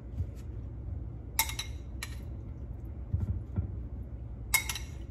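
A metal spoon clinks three times against a ceramic bowl as meat filling is scooped out onto a tortilla, with a few soft, dull knocks in between.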